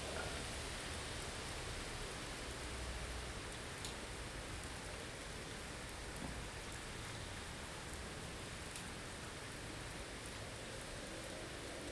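Blizzard ambience: a steady hiss of wind-driven snow with a low rumble underneath and a few faint ticks.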